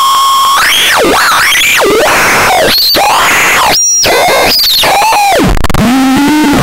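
Catastrophone 3 (HX61) noise synthesizer putting out a harsh, distorted electronic tone over noise: it holds one pitch, then swoops up and down in repeated glides, drops out for an instant about four seconds in, and ends on a lower buzzing tone.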